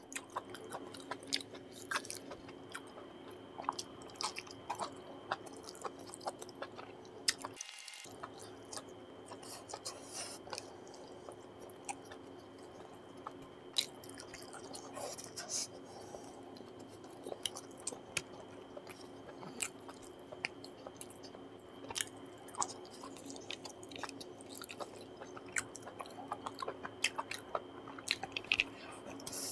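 Close-miked chewing and wet mouth smacks of a man eating chicken liver and gizzard curry with rice by hand. Many short, irregular clicks and smacks come one after another throughout.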